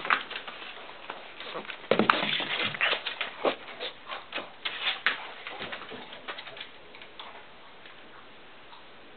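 Puppies scrambling over newspaper, the paper rustling and crinkling under their paws, mixed with short puppy whimpers. The scuffling is busiest in the first few seconds and dies away after about six seconds.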